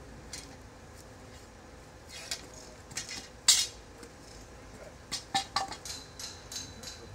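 Metal hand tools clinking and knocking: a few separate knocks, the loudest about three and a half seconds in, then a quick run of clinks near the end, some with a short ring.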